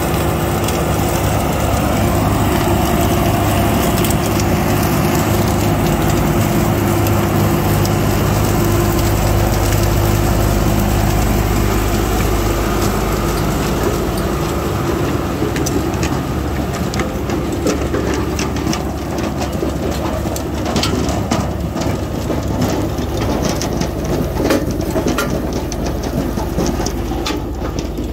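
Farm tractor's diesel engine running steadily while pulling an onion lifter through the field. From about halfway in, frequent clattering and rattling from the lifter's moving parts and the soil and onions passing through it.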